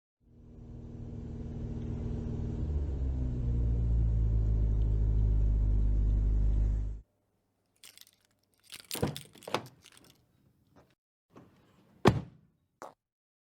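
Car engine running, fading in and growing louder over the first few seconds, then cutting off abruptly about seven seconds in. A scattering of sharp clicks and thunks follows, the loudest near the end.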